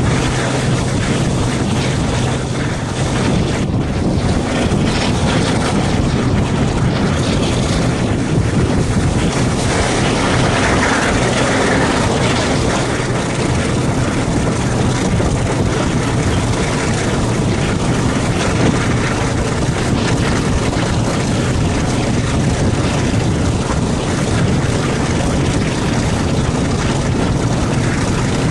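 Class 42 'Warship' diesel-hydraulic locomotive D832 pulling under power on its single working Maybach V12 engine. The engine is heard with a steady rush of wind on the microphone and running noise from the moving train.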